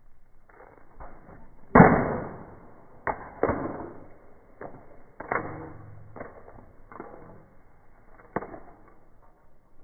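Verizon LG flip phone slammed hard against a wall again and again: a string of sharp cracking impacts, the loudest about two seconds in, then several more hits and fainter knocks through the rest.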